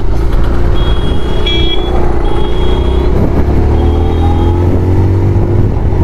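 Motorcycle engine pulling away from a stop, its pitch climbing slowly as the bike gathers speed.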